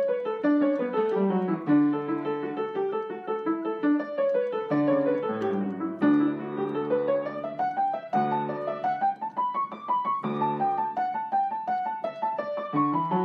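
Piano music: flowing runs of notes that sweep up and down.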